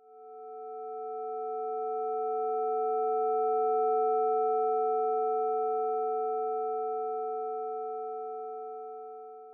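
A chord of steady synthesized sine tones swells in from silence, peaks about four seconds in, then slowly fades away. This is the Sonic Pi sonification of the red wine 'quality' histogram, its distribution rendered as a spectral profile of pitched tones.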